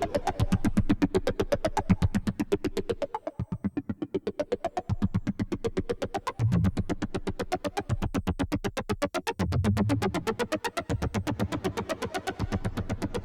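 Sequential Take 5 analog polysynth playing an FM-style patch: a rapid, evenly spaced run of short, sharp, metallic notes. Lower bass notes join in about six and a half seconds in and again near ten seconds.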